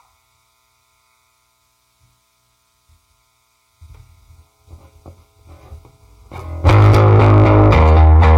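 Electric bass guitar through a Peavey VB-2 all-tube bass amp: almost nothing at first, a few soft plucks from about halfway, then loud sustained bass playing with the amp's growl from about two-thirds through.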